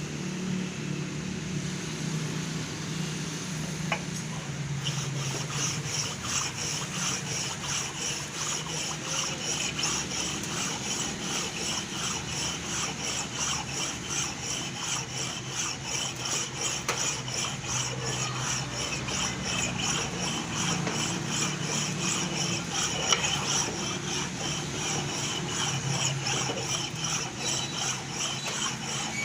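A cylinder head resurfacing machine runs with a low motor hum. From about five seconds in, a rapidly pulsing, high scraping sound joins it as the cutter works across the cylinder head's deck face, facing it flat.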